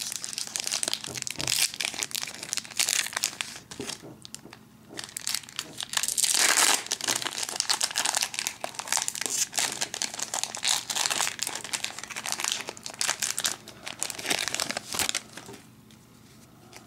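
Foil Pokémon card booster pack crinkling and crackling as it is handled and torn open, loudest about six seconds in, then dying down near the end.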